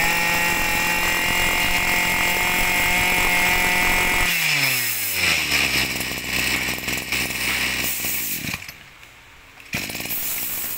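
Small two-stroke brush cutter engine running at high revs, then dropping to idle when the throttle is released about four seconds in, and cut off a few seconds later. About a second after it stops, a steady hissing noise comes back.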